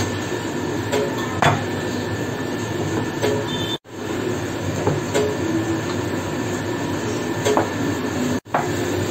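Hands mixing crumbly flour-and-ghee dough in a glass bowl over a steady background hum, with a few light clicks against the glass. The sound cuts out briefly twice, about four and eight and a half seconds in.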